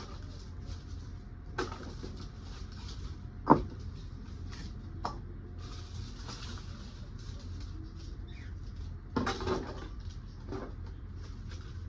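Scattered knocks, scrapes and rustles from hands working a plant pot and soil while transplanting. One sharp knock about a third of the way in is the loudest, with a short clatter of knocks about three quarters through, over a steady low rumble.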